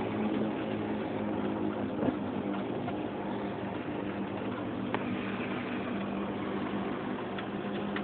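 Steady drone of road and drivetrain noise inside the cab of a Chevy K5 Blazer rolling downhill on tow with a broken transmission, with a single sharp knock about two seconds in.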